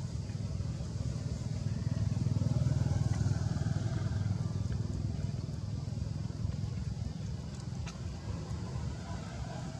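Low engine rumble of passing motor traffic that swells and fades about two to four seconds in, with a faint click near the end.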